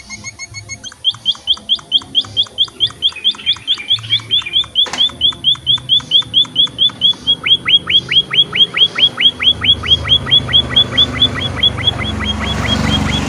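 Munia (emprit) giving a long, fast run of short, sharp chirps, about five a second, with a few higher notes at the start. A low rumble builds under it near the end.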